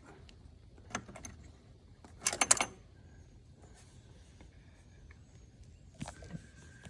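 Small metal clicks from hand tools working a bolt loose on the trike: a single click about a second in, a short quick run of louder clicks just after two seconds, and a few more near the end.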